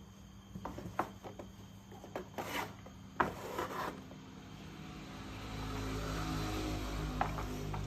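Plastic toy parts clicking and knocking as they are handled, then about five seconds in a small electric motor of a battery-powered toy train starts and runs with a steady hum.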